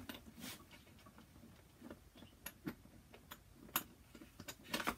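Faint, irregular small clicks and taps of metal hardware: a fender washer and wing nut being fitted by hand onto an elevator bolt against a plastic reflector panel, with a few sharper clicks near the end.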